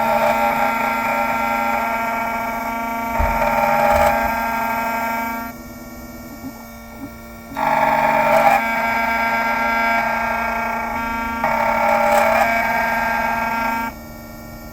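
Computerized key-cutting machine milling a new Schlage SC1 key blank at its top speed. The cutter whines steadily in two long passes of about five to six seconds each, dropping back to the quieter hum of the running motor for a couple of seconds between them and again near the end.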